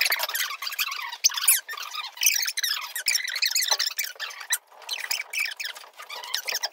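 A drywall knife scraping and squeaking against the wall and mud pan as joint compound is spread and smoothed, in many short, irregular strokes.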